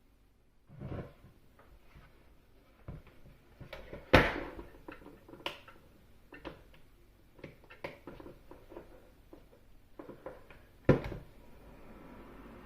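Handling noises: a string of small clicks and knocks, with two louder sharp knocks about four seconds in and near the end. A faint steady hiss sets in after the last knock.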